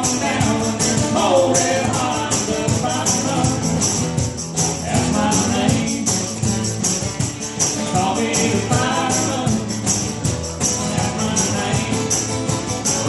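Live acoustic country band playing: strummed acoustic guitar under a steady jingling percussion beat of several strokes a second, with a voice singing at times.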